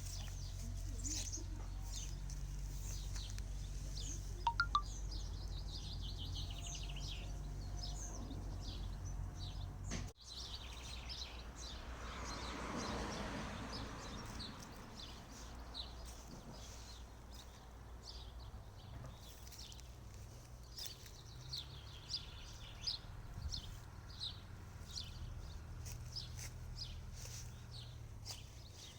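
Small birds chirping and calling, many short high calls overlapping, over a low steady hum. The sound breaks off sharply about a third of the way in, then a brief rush of noise swells and fades while the chirping goes on.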